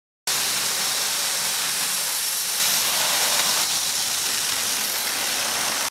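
A steady, even hiss that starts suddenly and cuts off suddenly.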